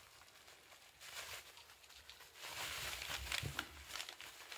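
Bubble-wrap packaging rustling and crinkling as it is handled and opened, in two stretches: a short one about a second in and a longer one from about two and a half to four seconds in.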